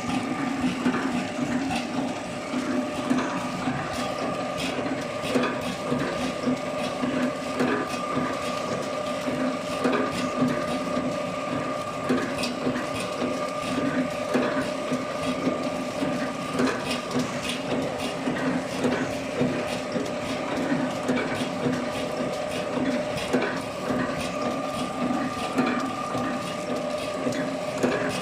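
Horizontal flow-pack packaging machine running steadily: a constant mechanical hum with frequent clicks and clatter from its moving parts.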